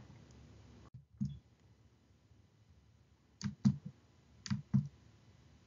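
Computer mouse clicks: a single click about a second in, then two quick pairs of clicks, like double-clicks, a little past three and a half seconds and near four and a half seconds in.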